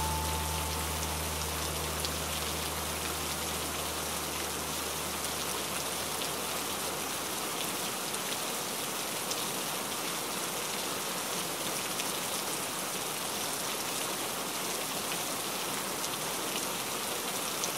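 Steady rain falling on a window pane. A low held note lingers at first and dies away about seven seconds in.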